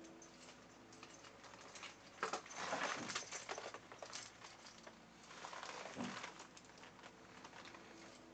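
Rustling and crinkling of a PVC costume worn over a sauna suit as the wearer bends and moves, in irregular bursts, the loudest about two to three and a half seconds in and again near six seconds.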